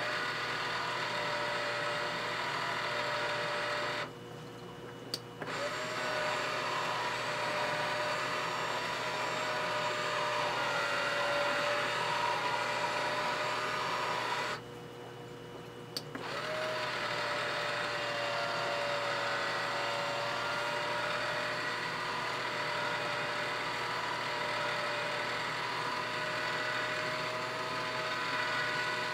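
Clack WS1CI control valve's drive motor whining steadily as it moves the internal piston through the regeneration cycles. It stops twice for a moment, about four seconds in and about fifteen seconds in, and each time starts again with a short rise in pitch.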